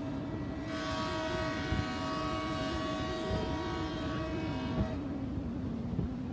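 Loaded covered hopper cars of a freight train rolling past with a steady rumble. Starting about a second in, a held ringing tone made of several pitches sounds for about four seconds over the rumble, then stops.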